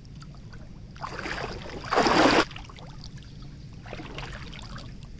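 Legs wading through shallow lake water: sloshing steps, with one loud splash about two seconds in and a softer slosh near four seconds.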